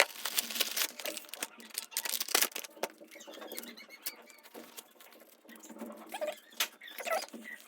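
Hands handling unboxed gear and plastic packaging: rustling and scratching with many small plastic clicks.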